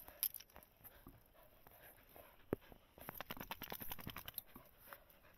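Faint crunching and crackling of footsteps on dry grass, twigs and stones. There is one sharper snap about halfway through and a quick run of crackles soon after.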